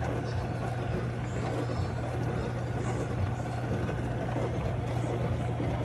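Portable countertop dishwasher running: a steady low motor hum with an even rushing noise over it.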